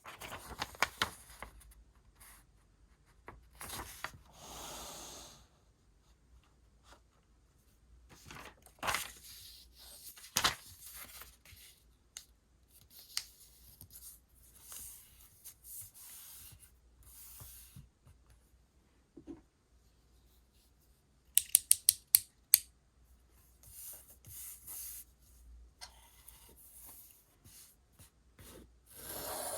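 Paper and stationery being handled while decorating a journal page: paper rustling and tearing and scissors snipping in short, separate bouts with quiet gaps between them. About two-thirds of the way through comes a quick run of about seven sharp clicks.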